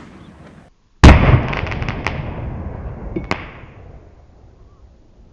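Black-powder golf ball mortar firing: about a second in, one loud boom, followed by a few sharp crackling pops from the chopped crackle fuse in the charge as the blast's echo dies away over the next few seconds.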